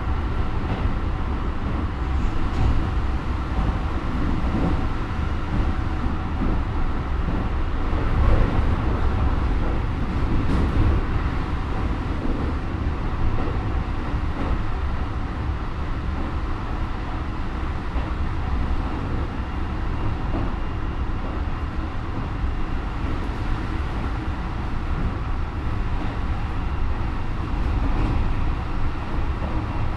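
Running sound inside a Keikyu 1000 series commuter train with Mitsubishi IGBT traction equipment, at a steady speed. Wheel and rail rumble sits under a steady motor whine of several fixed pitches. This car's motors run unusually loud, with a sound like the early GTO-type 1000s.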